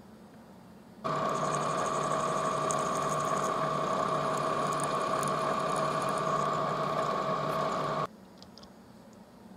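Milling machine spindle running with a twist drill cutting into an aluminum bar: a steady mechanical hum with a fixed whine. It starts abruptly about a second in and stops abruptly about a second and a half before the end.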